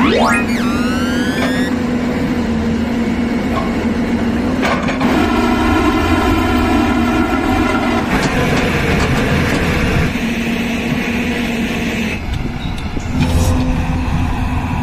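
Hyundai crawler excavator's diesel engine running with a steady hum as its bucket trims a slope, with a steady whine for about three seconds in the middle. A rising synthetic whoosh sounds at the very start.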